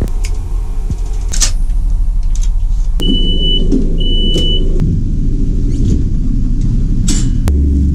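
Steady low rumble of a moving passenger train. Two short high electronic beeps sound about three and four seconds in, and a rushing noise comes up with them.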